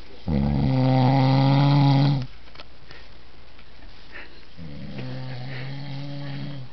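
A man snoring with his mouth shut: two long, pitched snores, the first loud and lasting about two seconds, the second fainter, coming a little past halfway.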